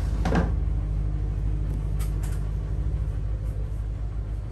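Steady low hum of a diesel engine running aboard the boat, with two light clicks about two seconds in.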